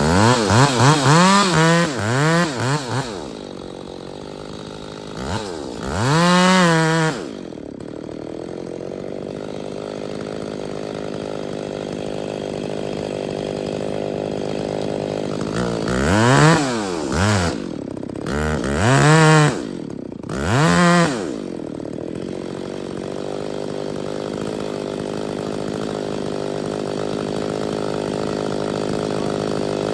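Two-stroke chainsaw running, revved up in short bursts several times: a cluster near the start, one about six seconds in, and four quick revs in a row past the middle, dropping back to a steady idle between them and towards the end.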